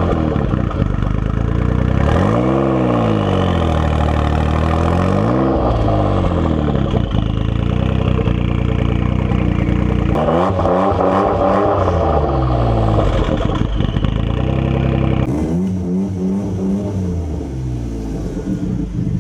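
Jaguar XJ220's twin-turbo V6 engine revving several times, its pitch swelling up and falling back in repeated waves.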